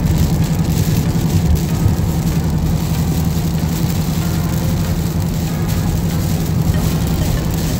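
Inside the cabin of a 2019 Mustang GT with its 5.0-litre V8 cruising on a snowy highway: a steady low engine drone over a constant hiss of winter tyres on slush and snow.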